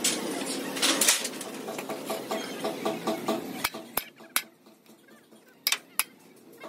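Metal tools or parts clinking against metal. First comes a quick run of light, regular ticks over a steady background noise. Then, in the second half, come five separate sharp clicks, with quieter gaps between them.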